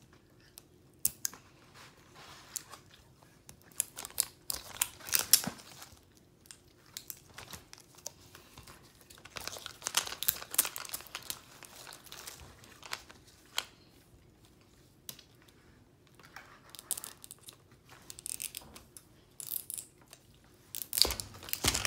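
Plastic wrapping being peeled and torn off a 5 Surprise Mini Brands capsule ball, in scattered bursts of crinkling and tearing with small clicks between and short pauses.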